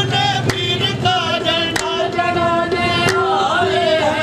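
Men singing a Sufi devotional chant in a group, in the qawwali style, with wavering voices over a held steady note. A few sharp hits cut in at intervals of about a second and a quarter.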